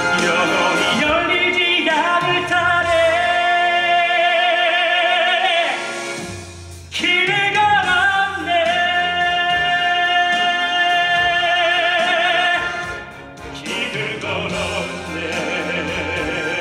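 Male musical-theatre singer holding two long notes with a wide vibrato over backing music, with a short break between them about six to seven seconds in.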